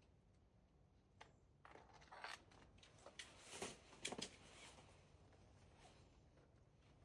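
Faint rustling and short scrapes of a climbing rope and a down jacket as the belayer pays out rope, loudest two to four seconds in.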